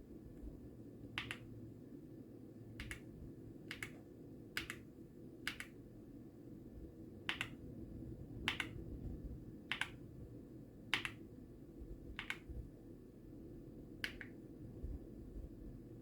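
Single keystrokes on a mechanical keyboard with Gateron Weightlessness switches: about eleven separate key presses, unevenly spaced, roughly one a second, each a short sharp click.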